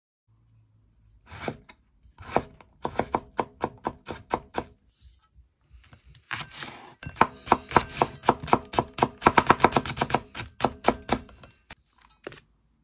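Kitchen knife finely chopping a Japanese long onion (negi) on a wooden cutting board: a couple of single strokes, then runs of quick, even knife taps, with a short pause about five seconds in and a faster, denser run after it.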